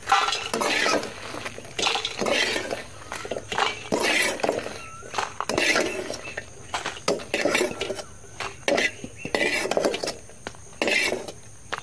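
A metal slotted spoon scraping and clinking against an aluminium kadai as fried dried red chillies are scooped out and tipped into a steel plate. The scrapes and clinks come irregularly throughout.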